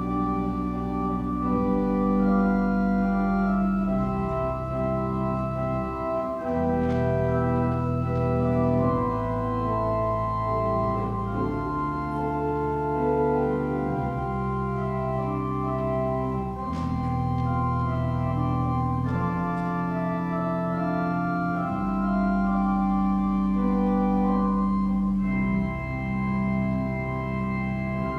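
Organ playing a postlude after the benediction: slow, sustained chords over a bass line that moves to a new note every second or few.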